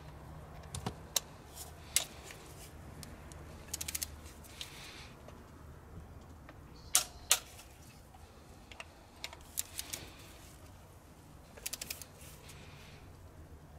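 Ratchet and torque wrench clicking as the diesel injector bracket bolts are tightened to torque. Short runs of rapid ratchet clicks alternate with single sharp metal clicks; the two loudest come close together about seven seconds in.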